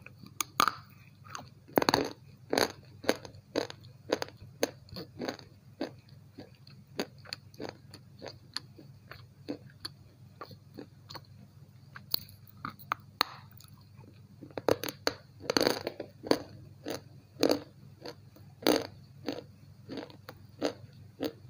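Slate pencil bitten and chewed close to the microphone: irregular sharp crunches in quick runs, with the loudest bites about two seconds in and again about two-thirds through. A steady low hum runs underneath.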